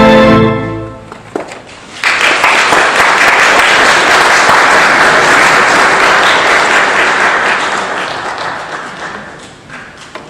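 A pipe organ's final chord is released about half a second in and dies away in the church's reverberation. About two seconds in, audience applause breaks out and carries on steadily before fading out near the end.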